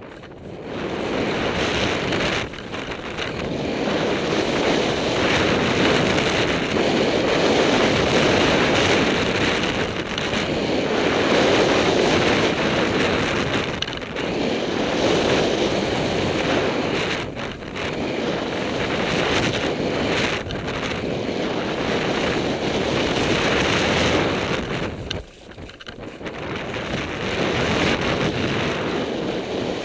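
Wind rushing over the camera's microphone during a fast ski descent, mixed with skis scraping over hard, thin snow. The rush swells and fades every few seconds, with a sharp brief dip near the end.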